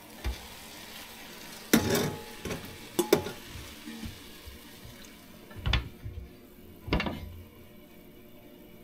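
Metal cooking utensils and cookware clanking: several sharp knocks a second or more apart, the first two ringing briefly, over a steady hiss.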